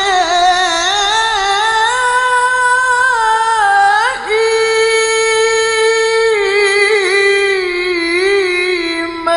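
A male qari reciting the Quran in the melodic mujawwad style, holding long ornamented notes with slow wavering turns. About four seconds in the voice breaks briefly, slides up and holds a higher note.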